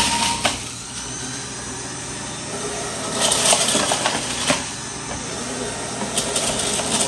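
Electric centrifugal juicer running and grinding fruit fed down its chute, with a few louder bursts of grinding and rattle about three to four and a half seconds in.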